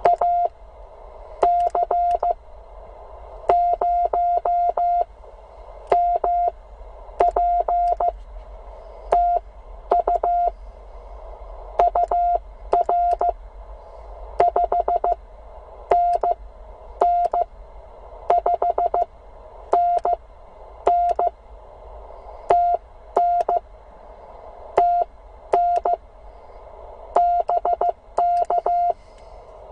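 Morse code (CW) from a Penntek TR45L HF transceiver: a single tone of one steady pitch keyed in dots and dashes, in groups with short pauses between, over steady receiver hiss.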